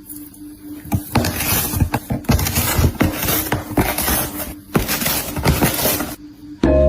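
Rustling noise with many small knocks and taps.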